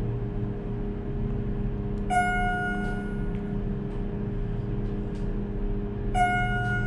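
Schindler MT/300A hydraulic elevator car rising, with the steady hum of its submersible pump motor under a single-tone floor-passing chime that dings twice, about four seconds apart.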